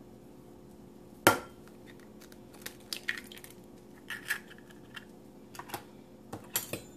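A raw egg struck once sharply against the rim of a ceramic bowl, then the shell crackling as it is pulled apart by hand, with light taps and crackles as the empty shell is handled and set back in the cardboard egg carton.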